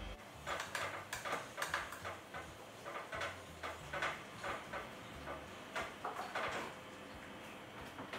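Faint, irregular short rustling noises, one about every half second, from a woman working through a set of dumbbell presses on a weight bench.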